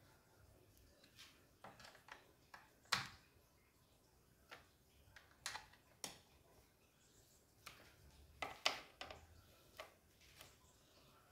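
Scattered light clicks and taps of hands handling parts on a Stihl MS 210 chainsaw during assembly, irregularly spaced, the sharpest about three seconds in and near nine seconds.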